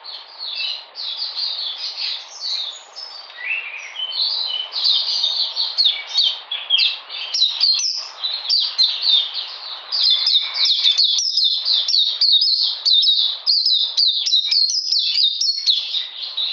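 Caged white-eye (mata puteh) singing a long, fast twittering song of high chirps and trills, getting louder and busier about halfway through.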